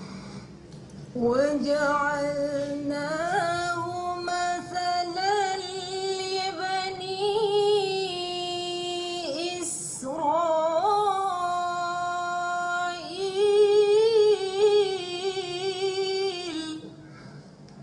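A woman reciting the Qur'an in melodic tilawah style, holding long, ornamented notes that rise and waver. She makes two long phrases, with a brief breath about ten seconds in.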